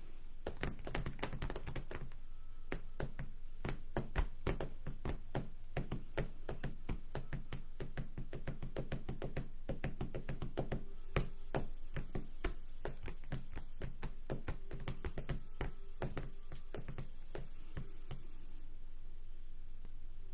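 Fingers tapping on the page of a spiral-bound sketchbook: a run of light, irregular taps, several a second, thinning out in the second half, over a faint low hum.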